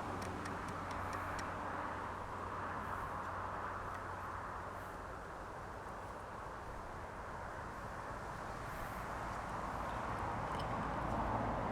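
Steady background noise with a low hum, and a few faint clicks in the first second or so.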